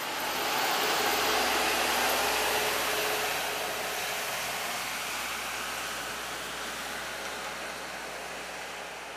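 Rail track tamping machine running past on the rails and moving away, a steady rumbling rush of engine and wheel noise that is loudest about a second in and then slowly fades.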